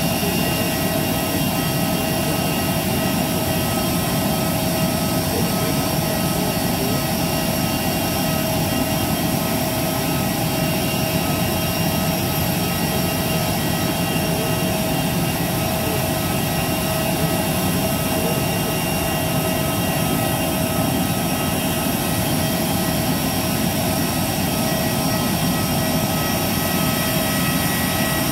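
Airbus A320's auxiliary power unit running on the ramp: a steady turbine roar with several high, even whining tones over it.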